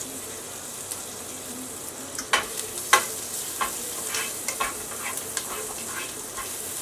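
Chopped garlic, ginger and green chilies sizzling in hot oil and butter in a non-stick pan. From about two seconds in, a spatula stirs them, with sharp scrapes and taps against the pan.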